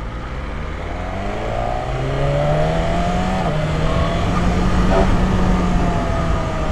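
Superbike engine pulling hard in second gear, its pitch rising over the first couple of seconds and then holding fairly steady as the speed climbs. Wind rush is heard under it.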